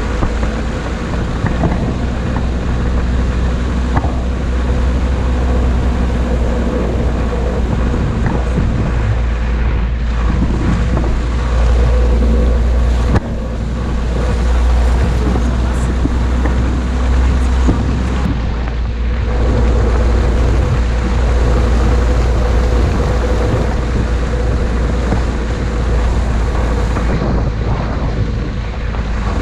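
Off-road vehicle driving along a snowy track: engine running steadily, with heavy wind rumble on the microphone.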